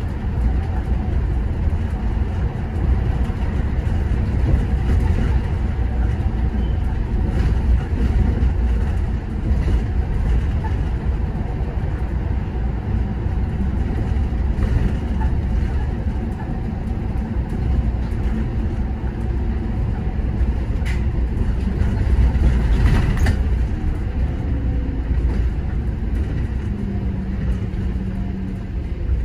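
City bus driving, with a continuous low engine and road rumble. A few faint clicks come about two-thirds of the way through, and a low hum falls in pitch near the end.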